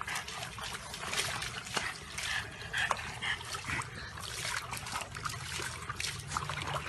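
Water splashing and sloshing in a plastic tub as a dog moves about in it, with a few short dog whines around the middle.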